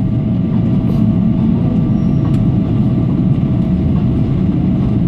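Cabin noise inside a Boeing 777-300ER taxiing after landing: a steady low rumble from its GE90 engines at idle and the rolling airframe, with a faint steady tone above it.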